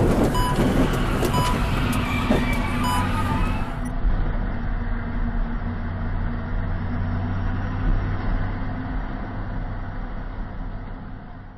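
Semi truck's engine and road noise inside the cab, a steady low drone, with a few short electronic beeps in the first three seconds.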